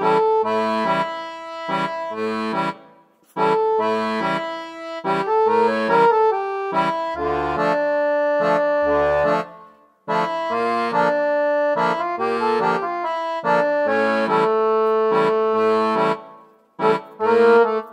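Instrumental background music, a steady, repeating tune that stops briefly three times, about three seconds in, about ten seconds in and near the end.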